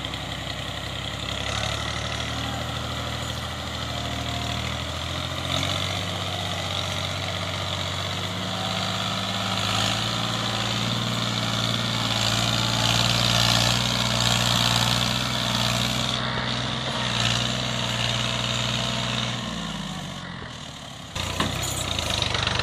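Ghazi tractor's diesel engine labouring as it pulls a trolley loaded high with sugarcane over rough field stubble. The engine note climbs through the middle, sags about 19 seconds in, and comes back loud and sudden near the end.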